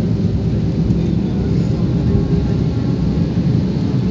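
Cabin noise of an Airbus A320 in flight: a steady low rumble that holds at one level throughout.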